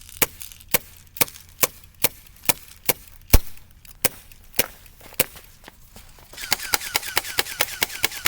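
Airsoft guns firing BBs: sharp single shots about two a second, with one heavier thump partway through. From about six seconds in, a rapid run of shots at about six or seven a second, each with a short falling whine.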